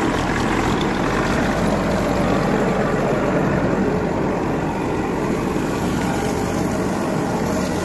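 An old tractor's engine running steadily, together with the pump it drives under the water tanker, which pushes water out in a strong pressure jet.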